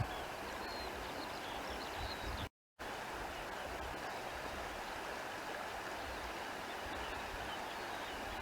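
Countryside ambience: the steady rush of a flowing stream, with a few faint high chirps over it. The sound cuts out completely for a split second about two and a half seconds in.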